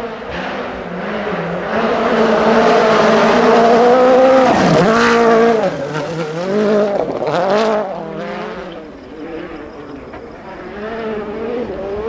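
A rally car on a gravel stage approaches at full throttle with its engine note climbing, passes close about five seconds in with a sharp drop in pitch and a rush of flung gravel, then changes gear several times as it moves away. Near the end a second rally car, a Hyundai i20 WRC, can be heard coming closer.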